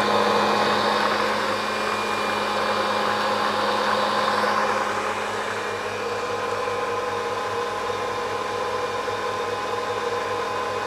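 Ankarsrum stand mixer running steadily at medium speed, creaming butter, oil and sugar: a steady motor hum with a whirr from the beating. It is a little louder at first and settles slightly about halfway through.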